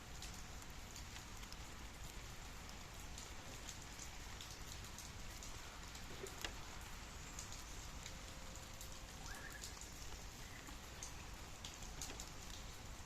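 Steady light rain falling, an even hiss with scattered louder single drops landing close by.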